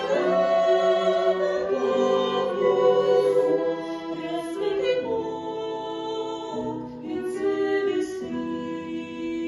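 Choir singing a slow hymn in held chords, each chord lasting about a second; no clear words come through.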